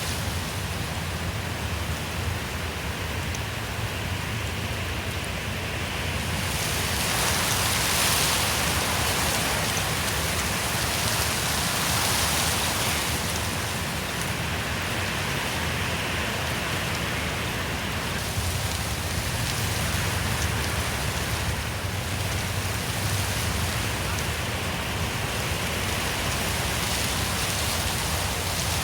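Wind blowing through forest trees, a steady rushing hiss of leaves and branches that swells in gusts twice.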